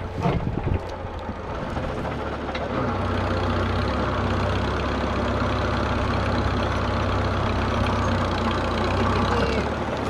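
Farmall Super A tractor engine running steadily, the power source for a homemade backhoe. A few knocks come in the first second, and the engine gets louder and steadier about three seconds in.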